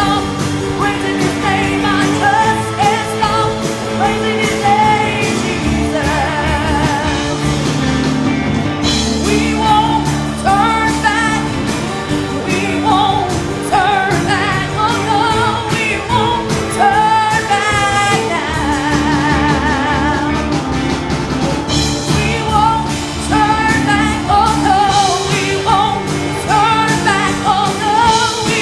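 Live gospel worship song: a lead singer with vibrato over a band playing held chords and a steady drumbeat.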